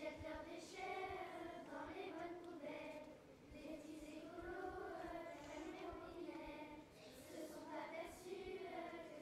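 Children singing a song in French, phrase after phrase, with a short break between lines.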